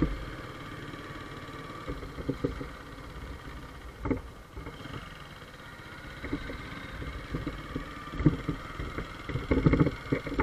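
Honda C70 underbone motorcycle running while being ridden, its small four-stroke single-cylinder engine steady under road and wind noise, with a few short knocks.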